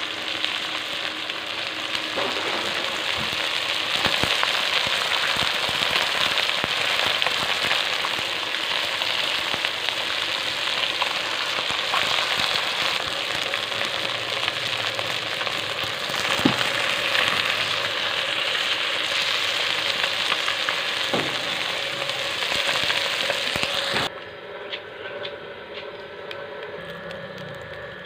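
Small fish frying in hot oil in a steel wok: a steady loud sizzle with scattered sharp pops and crackles from spattering oil. About 24 seconds in it cuts to a quieter, softer sizzle of sliced onion frying in a little oil.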